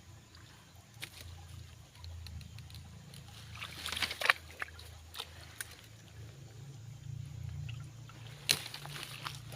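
Stream water sloshing and trickling, with a few sharp splashes, the loudest about four and eight and a half seconds in, over a low steady hum.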